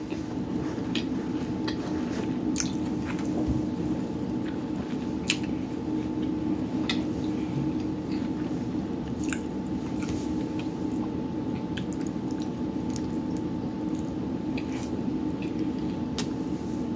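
A person chewing a mouthful of falafel taco with the mouth closed: wet chewing with scattered small clicks and smacks, over a steady background hum.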